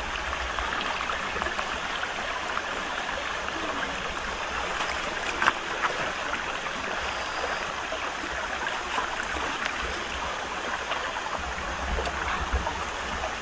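Steady rush of flowing water, like a stream, with a couple of faint clicks about midway.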